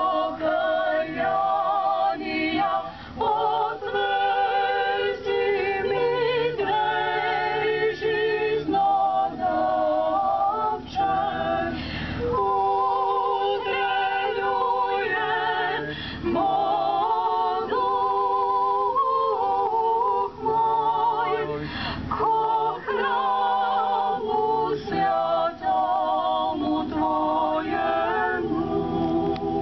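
Choir of mostly women's voices singing a cappella in several parts, in long held phrases with brief breaths between them.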